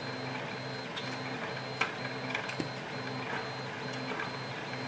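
3D printer stepper motors whining in short, evenly repeating pulses of several tones as the printer moves through its print, with a few sharp clicks.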